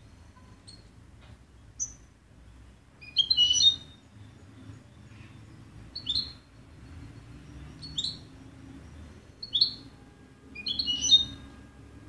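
European goldfinch calling: single short, sharp chirps every second or two, with two brief bursts of twittering, about three seconds in and near the end, which are the loudest.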